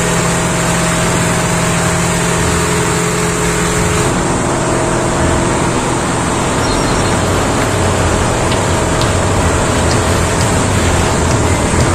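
Outrigger motorboat (bangka) engine running steadily under way, over a steady rush of wind and water. The engine's tone shifts about four seconds in.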